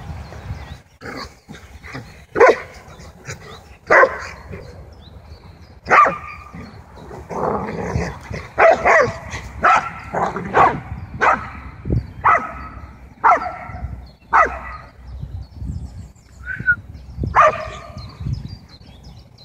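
Dogs barking while they play together: about a dozen short, sharp barks a second or so apart, some in quick pairs.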